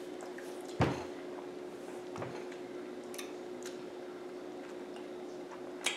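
Quiet room tone with a steady low hum, a soft thump about a second in, a weaker one a little later, and a few faint clicks.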